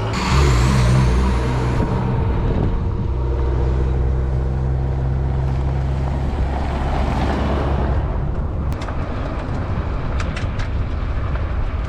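A car engine pulling away, louder just after the start, then running steadily while driving, with a few light clicks near the end.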